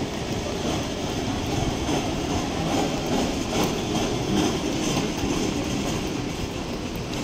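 Wheels of rolling suitcases rattling over a tiled floor, a steady rumbling clatter.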